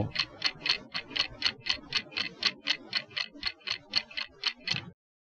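A clock ticking steadily, about four ticks a second, cutting off about a second before the end.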